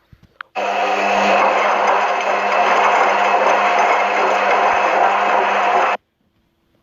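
Washing machine motor running with a steady whirring hum. It starts suddenly about half a second in and cuts off suddenly about a second before the end.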